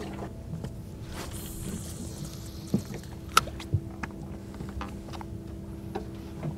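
A cast from a baitcasting reel: line hisses off the spinning spool for about a second, a few sharp knocks follow, then the reel is wound in. A steady low hum runs underneath.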